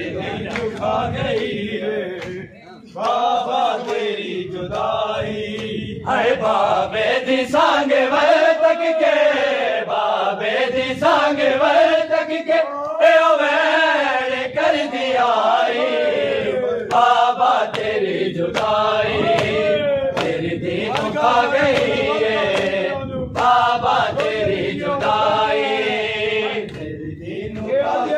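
Men's voices chanting a Punjabi noha, a mourning lament, in a rising and falling melody, with sharp slaps of hands on chests (matam) in among the singing.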